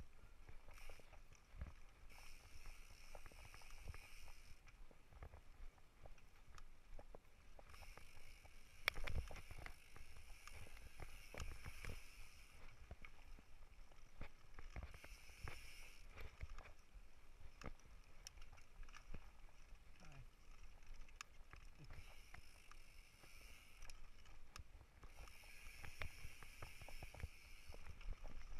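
Mountain bike rolling over a dirt trail: a steady run of rattles and knocks as it bumps along, the loudest about nine seconds in, with a high buzz that comes and goes several times.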